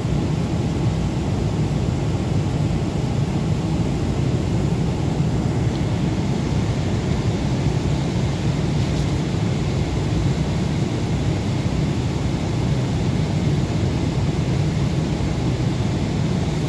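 Steady cabin noise inside a Boeing 767 at cruise altitude: an even, unchanging rush of airflow and engine noise, heaviest in the deep range.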